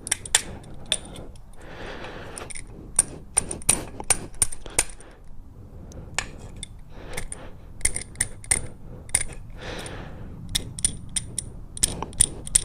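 A hammer tapping a metal part of the motorcycle's shift lever and rear set assembly into place: many sharp, ringing metallic taps in irregular clusters, with some scraping between them.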